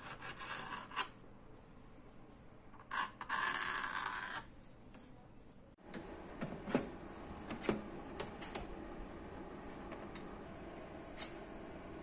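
A pen scratching across a black kydex sheet in two strokes, a short one at the start and a longer one of over a second about three seconds in. After that come a few light clicks.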